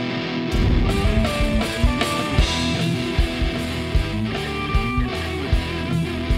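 Instrumental music with guitar over a steady drum beat.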